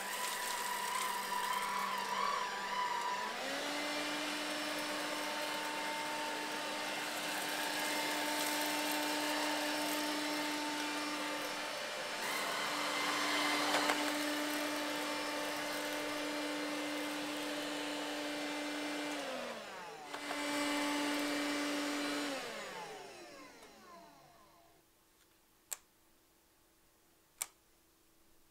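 Bosch BBH214 cordless stick vacuum's battery motor running as it cleans a rug, with a steady high whine that steps up in pitch about three seconds in. Near the end the pitch drops, picks up again for a couple of seconds, then winds down to a stop, followed by two sharp clicks.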